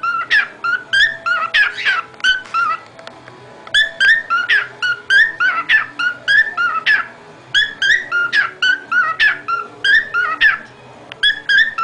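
Cockatiel whistling: quick runs of short, high chirped notes, each bending upward, repeated in similar phrases with short pauses about a third and two-thirds of the way through.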